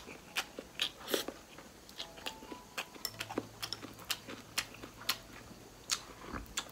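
Close-up eating sounds: chewing and biting of instant noodles, with wooden chopsticks clicking and scraping against a ceramic bowl in many short, sharp taps.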